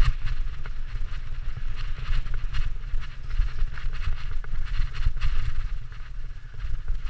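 Mountain bike riding fast down a dirt trail: wind buffets the microphone with a constant low rumble, over the hiss of tyres on dirt and leaves. Frequent short knocks and rattles come as the bike goes over bumps.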